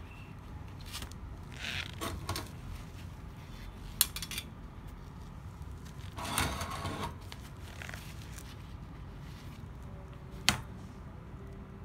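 Steel self-adjusting locking C-clamps being handled: a few sharp metallic clicks and clacks, the loudest about four seconds in and again near the end, with a short scraping rustle about six seconds in.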